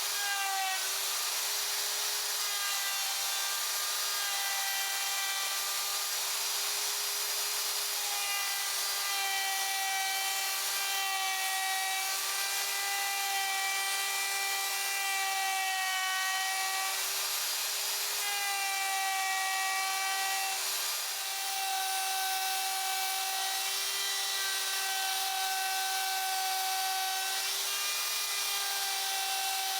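Small high-speed electric power tool running steadily and working wood, with a constant whine whose upper overtones swell and fade as the tool is pressed against the work.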